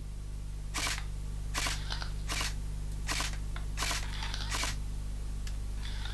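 A thin rod pushed back and forth through the bore of a Martina Smokey Wolf airsoft smoke tracer to trip its sensor: a series of short scratchy strokes at an irregular pace, roughly one or two a second, over a steady low hum.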